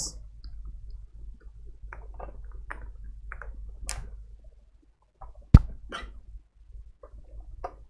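Multimeter test probes and leads being handled and set against a computer motherboard: a scatter of light clicks and taps over a faint steady hum, with one sharper click about five and a half seconds in.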